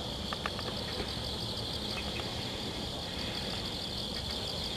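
Steady, high-pitched insect chorus of crickets or cicadas, over a low steady hum, with a few light clicks about half a second in.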